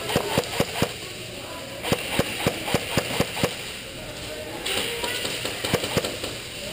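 Airsoft guns firing in quick strings of sharp shots at about four to five a second: about five in the first second, about seven more from two to three and a half seconds in, and a few near the end.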